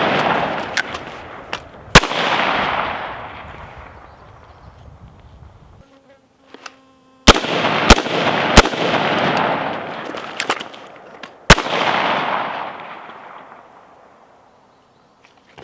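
Gunshots from a rifle and pistol during a rifle-to-pistol transition drill. There is one shot about two seconds in, then after a pause a quick string of three, and a last shot near the end. Each shot echoes for a couple of seconds, with small clicks between the shots.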